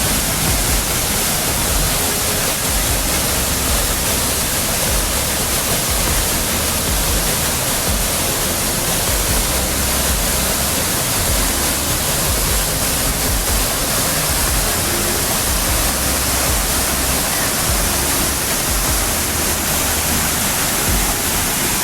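Waterfall pouring, a loud steady rush of water with an uneven low rumble underneath.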